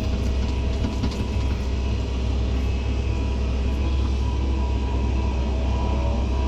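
Heavy diesel engine of earthmoving machinery running steadily with a deep, even rumble.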